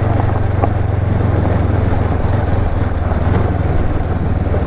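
Honda CB500X's parallel-twin engine running at a steady speed while the bike is ridden along a dirt track, with a steady rushing noise over it.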